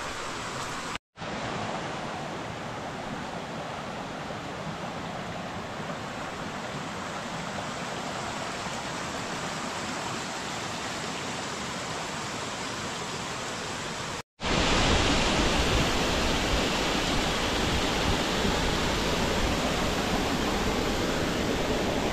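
Steady rush of running water from a stream, split by two brief silent cuts, about a second in and about fourteen seconds in; after the second cut the rush is louder and deeper.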